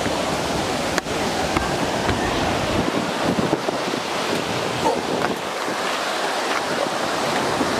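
Steady rushing of falling and flowing water, with wind buffeting the microphone during the first few seconds.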